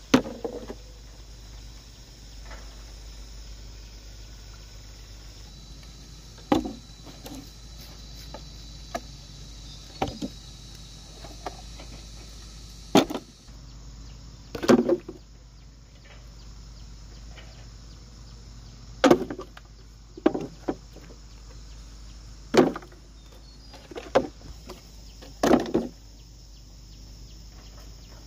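A series of irregular knocks and thuds, about ten, spaced one to several seconds apart over a steady background.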